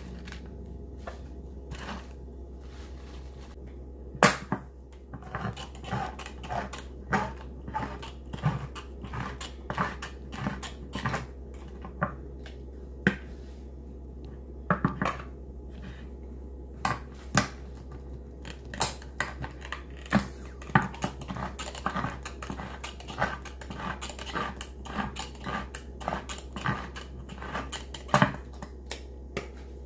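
Handheld manual can opener piercing and cranking around metal cans, an irregular run of sharp clicks and crunches, with a steady low hum underneath.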